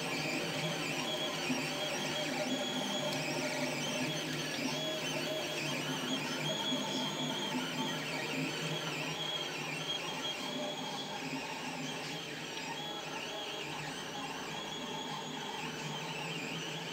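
FDM 3D printer running a print: its stepper motors whine in tones that shift pitch every second or so as the print head moves, with the hotend's cooling fan running steadily beneath.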